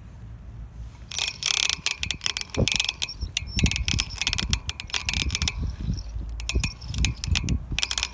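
Strange mechanical noise from a Tata Nano while it freewheels: rapid, irregular clicking and chattering that starts about a second in, over a low rumble. Its cause is not known.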